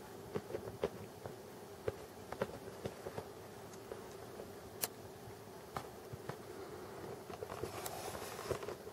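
A cat licking a kitten up close: irregular soft clicks of its tongue, several a second at times, with a brief rustle of fur and blanket near the end.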